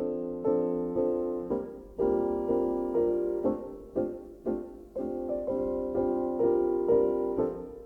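Background music: a piano playing repeated chords, each struck and left to ring and fade before the next.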